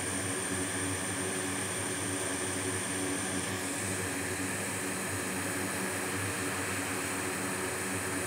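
Hot air rework station blowing a steady stream of hot air onto a MacBook logic board chip to melt its solder so the failed ISL6259 charger IC can be lifted off. The airflow is a steady rush with a thin high tone over it.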